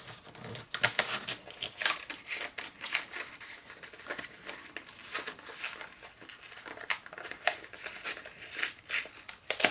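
Clear plastic packaging crinkling and stiff paper rustling as an ephemera pack is pulled from its sleeve and handled, in irregular crackles with the sharpest one near the end.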